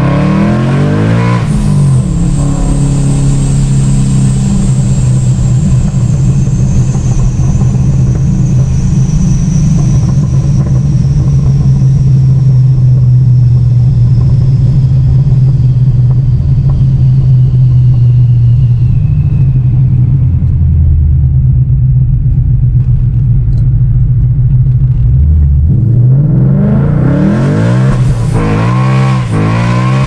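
Car engine running loud, its revs rising and falling in the first two seconds and again over the last few seconds. Between those it runs steadily, with a high whine that slowly falls in pitch over about twenty seconds.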